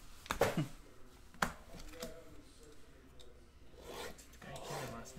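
A stack of glossy Panini Prizm football cards being flipped through by hand, the stiff cards rubbing and sliding against each other, with two sharp card snaps in the first second and a half.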